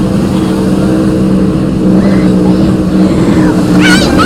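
Offshore racing powerboat engines running at speed, a loud steady drone, with a brief high-pitched wavering sound near the end.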